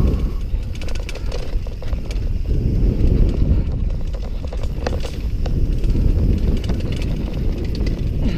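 Mountain bike ridden fast down a dirt trail, heard from a helmet camera: a steady low rumble of wind on the microphone and tyres on dirt, with the bike rattling in quick clicks over bumps.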